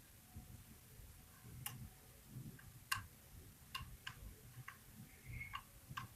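Faint, irregular metallic clicks of a lock pick working the pins inside a KeyMark lock cylinder, about eight clicks at uneven intervals, the loudest about three seconds in. A brief squeak of the pick about five seconds in, over a low handling rumble.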